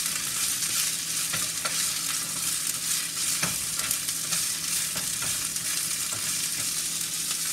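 Food sizzling in a frying pan on the stove, a steady hiss broken by scattered clicks and scrapes of a utensil stirring in the pan.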